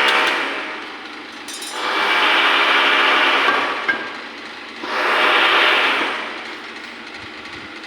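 A power tool working in long swells that rise and fall about every three seconds, a hissing, grinding-type noise with a faint hum beneath it.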